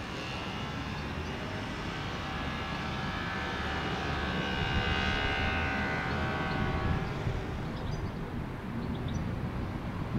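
Condor Airbus A321 jet airliner passing overhead in flight. Its engines give a steady low rumble with a high whine that swells to its loudest about five seconds in and fades away after about seven seconds, leaving the rumble.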